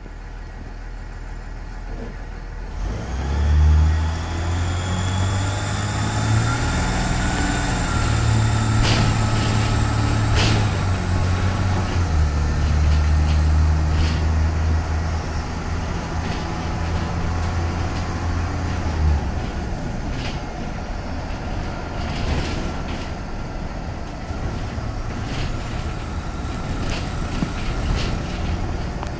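Cummins ISB 5.9 CNG engine of a Startrans President FE cutaway bus, heard from inside the cabin. It pulls hard from about three seconds in, and its note changes in steps as the Allison automatic shifts through the gears. After about nineteen seconds it eases off to a lower, steadier drone under road noise and the clicks and rattles of the bus interior.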